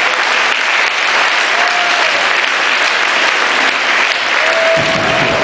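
Hall full of folk dancers applauding, a dense, steady clapping, with a couple of short held tones over it near the middle and near the end.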